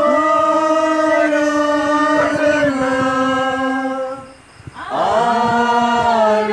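Congregation singing a slow hymn in unison, with long held notes: one long phrase, a short breath near the middle, then a second phrase at a slightly lower pitch.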